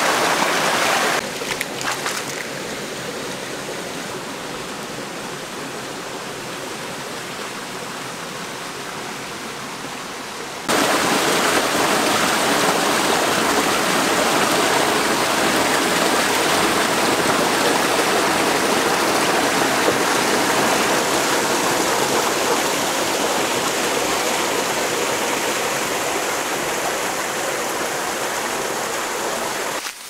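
Steady rushing of a shallow stream's water running over rocks and small cascades. It drops quieter about a second in and comes back louder about ten seconds in.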